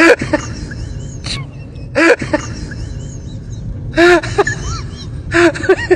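Short wordless vocal sounds from a person's voice, each one rising and then falling in pitch: one near the start, one about two seconds in, one about four seconds in and two close together near the end.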